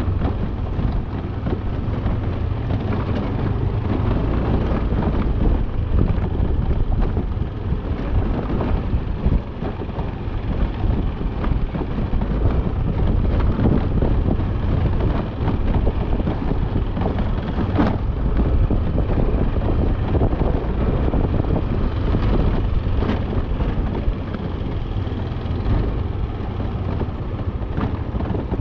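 A motorcycle on the move, heard mostly as wind over the microphone, with steady road and engine noise underneath.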